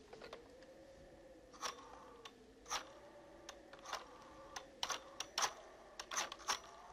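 Desk telephone handled and dialled: a string of short, sharp plastic clicks and clacks at uneven intervals, over a faint, slightly wavering low hum.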